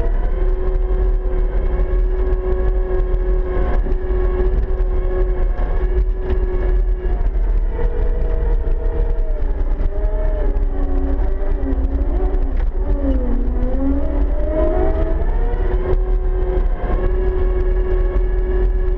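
Caterpillar 299D XHP compact track loader running and moving, heard from inside its cab: a steady deep engine rumble with a constant whine. Between about 8 and 15 seconds in, the whining tones waver, dipping and rising in pitch, then settle back.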